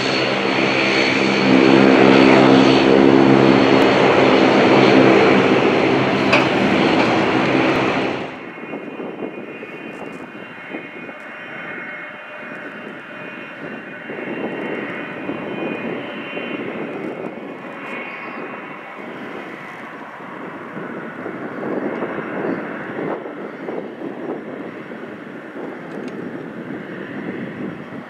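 A louder passage with a steady low hum opens the clip and cuts off suddenly about eight seconds in. Then the Boeing 777-200LR's GE90 turbofans run at low taxi thrust: a steady jet whine that swells and eases a few times.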